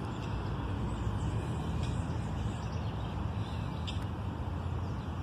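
Steady low outdoor background rumble with no distinct events, only a few faint ticks.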